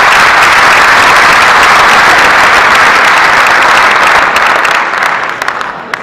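Audience applauding loudly, the clapping thinning out near the end.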